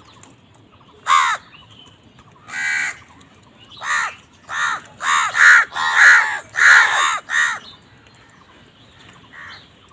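House crows cawing: a single harsh caw about a second in and another a little before three seconds, then a quick run of about eight caws between four and seven and a half seconds, and one faint caw near the end.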